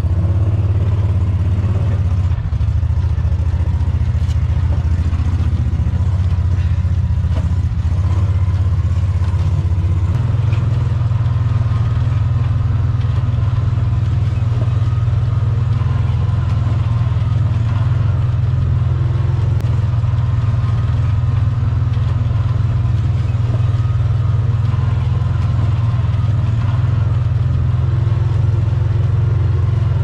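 A vehicle's engine running steadily, heard from on board: a low drone that steps up slightly in pitch about ten seconds in.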